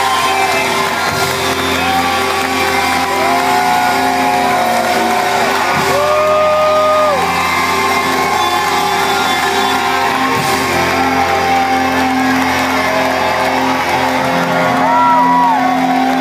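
Live rock band playing loud through a hall's PA, heard from within the audience, with crowd members shouting and whooping over the music.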